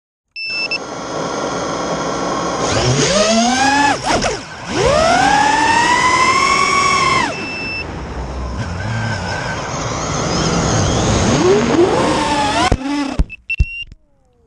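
FPV quadcopter's brushless motors and propellers whining, the pitch rising and falling with the throttle. Near the end a few sharp knocks as the quad crashes, then the motors cut off.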